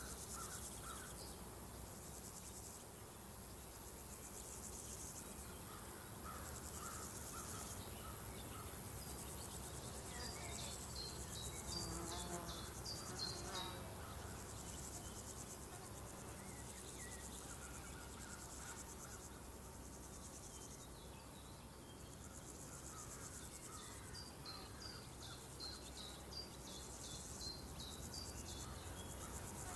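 Steady buzzing of crickets and other insects in a rural summer field; the high buzz eases off about ten seconds in. Short runs of high chirps come twice, about ten seconds in and again near the end.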